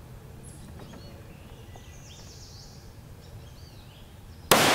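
Faint bird chirps over quiet outdoor background, then near the end a single loud rifle shot, a 7.62 NATO M948 SLAP round fired from a scoped rifle, cracking suddenly and echoing away in a long tail.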